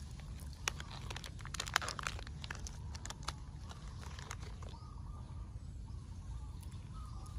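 Steady low rumble with a flurry of small crackles and clicks through the first three seconds or so, densest about two seconds in.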